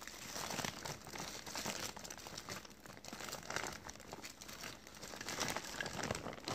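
Irregular crinkling and rustling close to the microphone.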